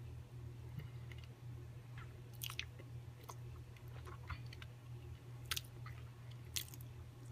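Close-up wet chewing of a sticky mouthful of Nutella, with a few sharp lip smacks and tongue clicks, over a low steady hum.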